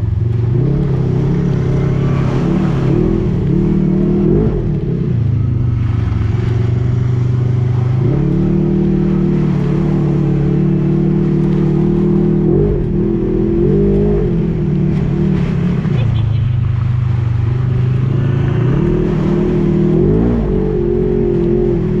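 Four-wheeler (ATV) engine running under throttle. Its pitch holds steady for a few seconds at a time, then rises and falls several times as the revs change.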